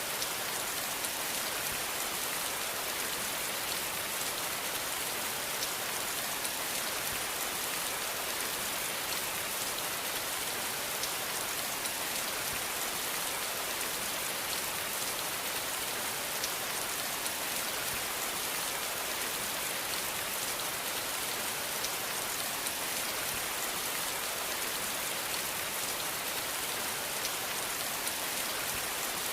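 Steady rain falling, an even hiss of many drops with faint scattered patters of individual drops.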